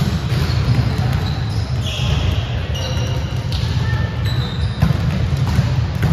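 Volleyballs being hit and bouncing on a gym floor, with sharp knocks scattered through, short high squeaks and voices over a steady low rumble in an echoing hall.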